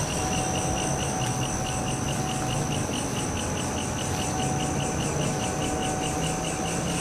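Crickets and other night insects chirring in tall grass: a steady high trill with a chirp pulsing about five times a second, over a low steady hum.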